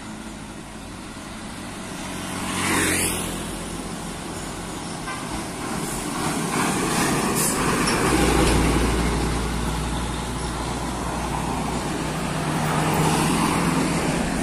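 Roadside traffic: vehicles passing one after another, one sweeping quickly past about three seconds in, then a heavy vehicle's deep engine rumble from about eight seconds in.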